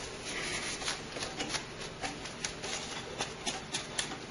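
Small scattered clicks, scrapes and rattles of an expansion card being worked loose and pulled out of its slot in a desktop PC.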